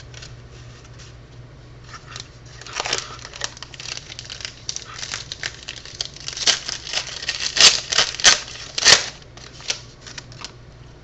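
Plastic or foil trading-card pack wrapper crinkling and being torn open, with cards being handled. A dense run of rustles and sharp crackles gets louder about two-thirds of the way in.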